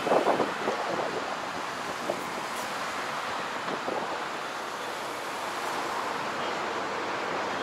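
Steady hum of road traffic, with wind buffeting the microphone in a few loud gusts at the start.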